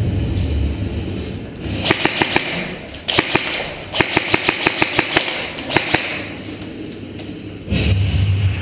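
Airsoft guns firing: several volleys of sharp shots, clacking about seven times a second in the longest run, which lasts about a second and a half.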